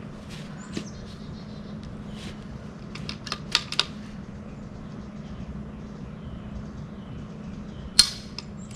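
Sharp mechanical clicks of a .22 rifle's action being worked during a timed stage: a quick run of clicks about three and a half seconds in and one loud click near the end, over a steady low hum.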